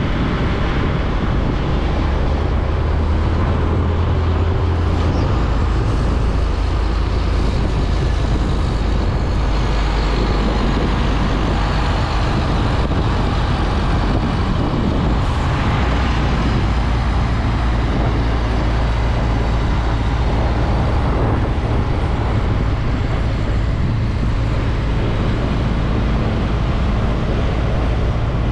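Heavy semi-trailer truck driving past at close range: deep diesel engine rumble and tyre noise on the road, over steady traffic noise.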